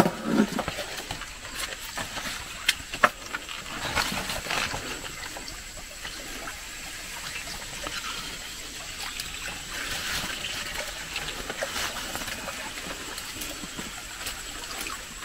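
Water trickling and lapping as a small boat is worked through dense swamp plants, with a few sharp knocks in the first four seconds, over a steady high hiss.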